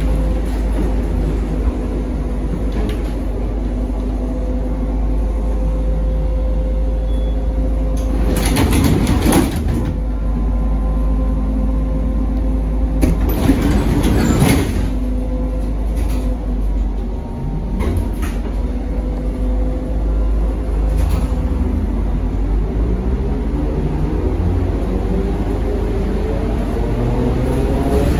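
Inside a ZiU-682V trolleybus: a steady hum at the stop, broken twice by loud hisses of air, about 9 and 14 seconds in. From about 21 seconds in, the traction motor's whine rises steadily in pitch as the trolleybus moves off.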